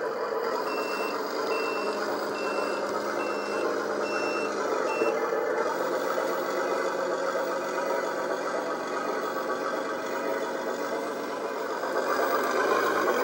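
RC truck sound module playing a simulated truck diesel engine running steadily through the model's small speaker, with a reversing beeper sounding six times, about one beep every 0.7 s, in the first five seconds: the beeper the module plays when the truck drives backwards.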